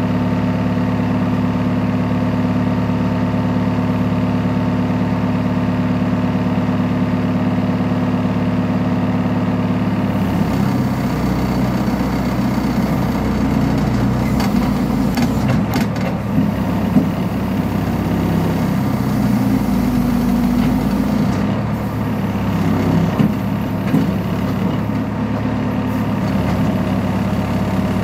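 Backhoe loader's diesel engine idling steadily, then about ten seconds in its note shifts and roughens as the hydraulic arm is worked, with a few sharp clunks.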